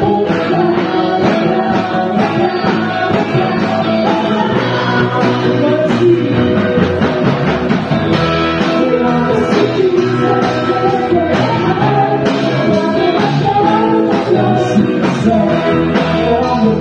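Live band playing a praise song: vocalists singing into microphones over electric guitar and a drum kit.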